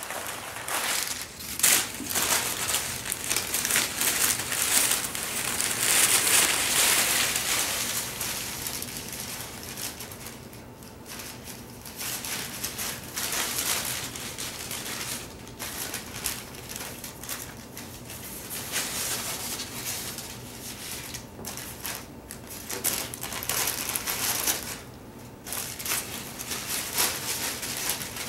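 Brown packing paper crinkling and rustling as a Shetland sheepdog puppy pounces on, bites and drags it, in irregular bursts. It is loudest over the first eight seconds or so, with short quiet lulls later.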